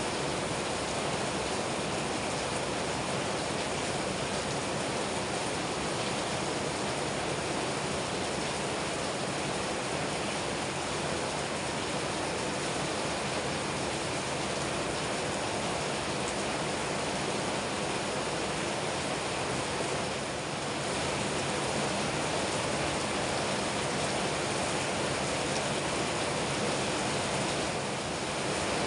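Heavy rain falling steadily, a constant rushing hiss with no other distinct sounds.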